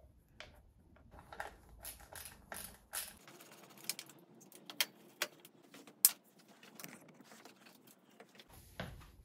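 Scattered light clicks and knocks of a budget Zoom suspension fork being worked loose and slid out of a bicycle's head tube, metal parts tapping against each other and the frame; the sharpest knock comes about six seconds in.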